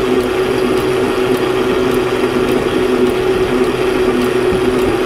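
Lewmar 700 Pro electric anchor windlass running steadily under load, its gypsy hauling the anchor rope aboard: a steady mechanical hum with faint, regular ticking.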